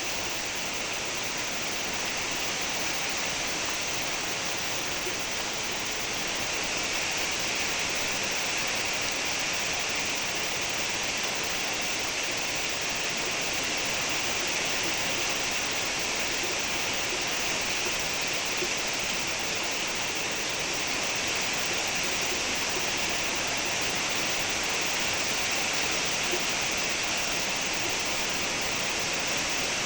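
Steady rain falling, an even unbroken hiss with no single drops or thunder standing out.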